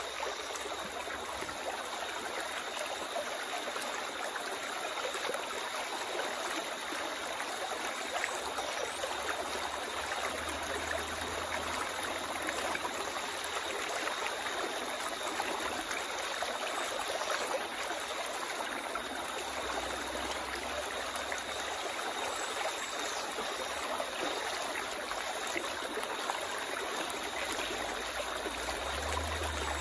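River water running steadily in a shallow stream, an even rushing babble with no pauses.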